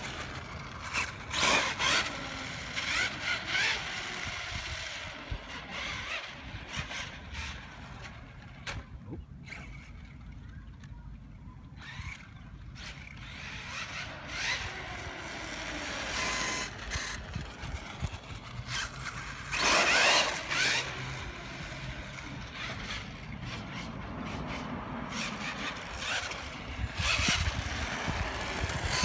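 Traxxas T-Maxx RC monster truck running on 4S, its drivetrain whining up and down in pitch with each burst of throttle. It is loudest as it passes close, about two seconds in and again about twenty seconds in, and fainter while it is far off. The owner hears a little chime in it and suspects the pinion is meshed too tight on the spur gear, though he is not sure.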